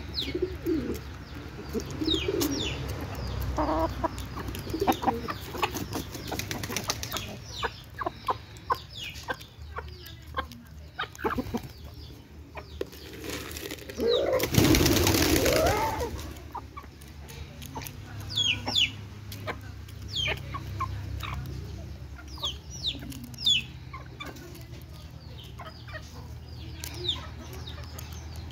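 Hens and a rooster pecking corn kernels from a bare hand: many quick sharp pecking clicks, with soft clucks and short high calls. About halfway through comes a louder rustling flurry lasting about two seconds.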